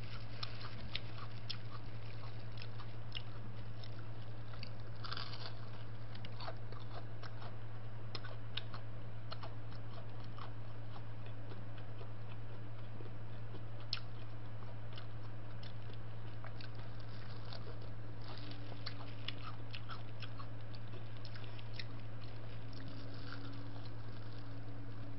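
Close-miked chewing and biting of crispy fried chicken, with many small crunching crackles scattered throughout, over a steady low hum.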